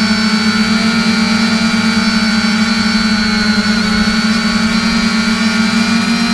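3DR Iris+ quadcopter's electric motors and propellers running steadily in flight, heard from the drone's onboard camera: a constant buzzing hum with a high whine above it, its pitch wavering slightly about halfway through.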